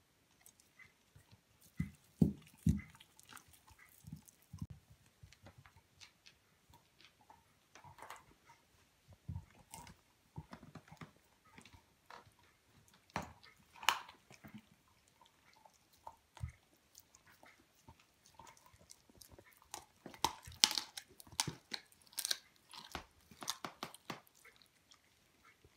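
A Hamiltonstövare hound chewing and gnawing a raw chicken leg quarter: irregular wet bites and crunches, with a few low knocks about two seconds in and a denser run of sharp crunches around twenty seconds in.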